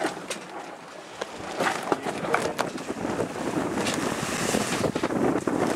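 Wind buffeting the microphone over the rush of water along the hull of a sailing yacht under way, growing louder after about a second, with a few light knocks.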